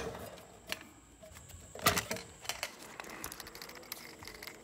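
Scattered small clicks and knocks of hands handling a rotary rock tumbler's rubber barrel and unscrewing the knob on its metal lid, the loudest knock about two seconds in. A steady hum fades out in the first half second.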